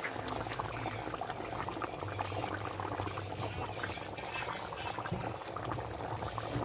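Chicken curry in coconut milk boiling in a pot: a steady bubbling with many small pops.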